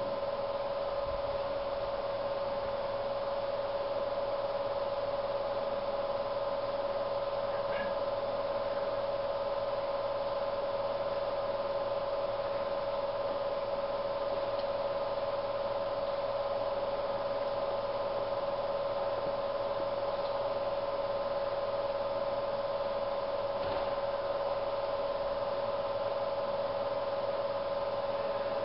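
Steady electrical hum with a constant mid-pitched whine, typical of an electric locomotive standing with its transformer and converters running. It holds one pitch throughout without rising or falling.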